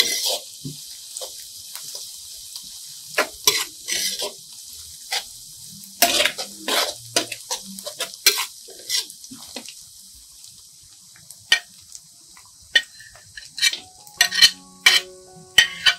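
Chopped onion, garlic and shallots sizzling in oil in a stainless steel wok, with a metal spatula scraping and clattering against the pan at irregular moments as they are stirred.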